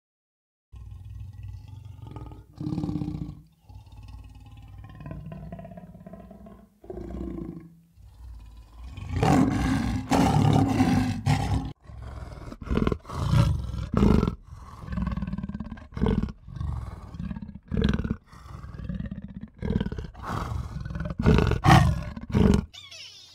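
Lion roaring: low, deep calls build into a loud roar, then run into a series of short grunts about one a second that cut off suddenly near the end.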